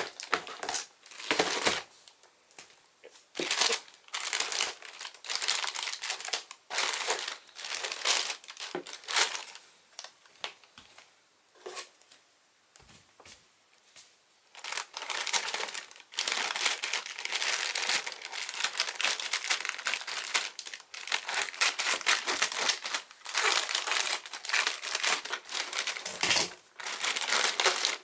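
A cardboard shipping box and its packaging being cut and torn open by hand: irregular bursts of crinkling and tearing, with a quieter lull about halfway through.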